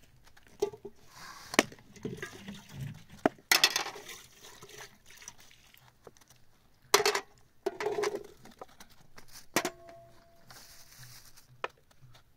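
Kitchenware being handled during food preparation: dishes and utensils clinking and knocking in scattered sharp taps, with two short bursts of rustling noise. About ten seconds in, one clink rings on briefly, like a struck metal or glass vessel.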